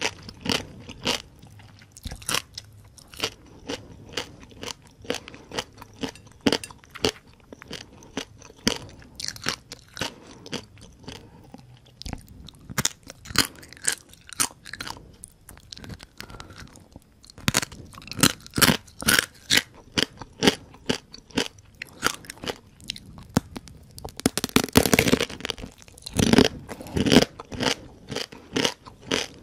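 Close-miked chewing of whole deep-fried rice-field crabs: the crisp shells crack and crunch between the teeth in rapid, irregular crunches. A louder, longer run of crunching comes about 25 seconds in.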